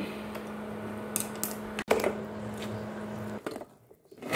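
Induction cooktop humming steadily under a steel pot of boiling sugar syrup, with a few light clicks. The hum stops about three and a half seconds in as the cooktop is switched off, and near the end fried pithas clatter and splash as they are tipped from a bowl into the syrup.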